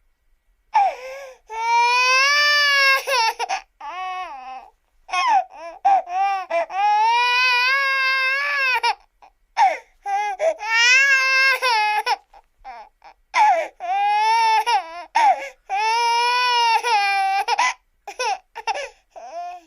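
Cartoon crying sound effect: a high-pitched voice wailing in long, wavering cries of up to about three seconds, broken by short sobs and gasps, ending in a run of short sobs.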